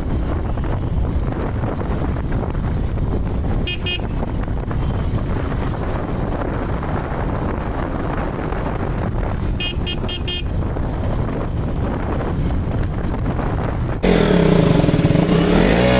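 Wind rush and engine noise from a KTM RC 200 motorcycle riding on the road. A short horn toot comes about four seconds in, and a quick run of three or four toots about ten seconds in. Near the end the sound switches suddenly to a louder, closer engine note.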